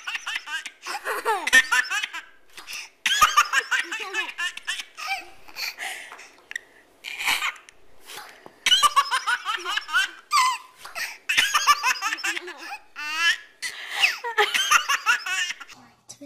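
A baby laughing hard in repeated bouts of giggles and belly laughs, with short breaks between them.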